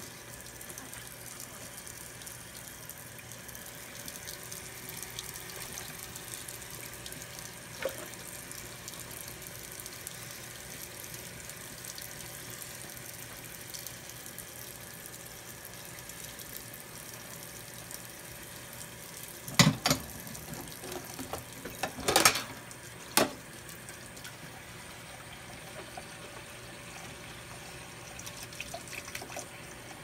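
Kitchen tap running into a stainless steel sink while dishes are washed by hand, with a few sharp clatters of dishes about two-thirds of the way through.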